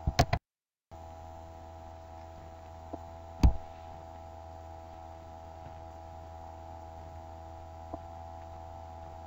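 Steady electrical mains hum from the recording or sound system, with a single sharp thump about three and a half seconds in and two faint clicks.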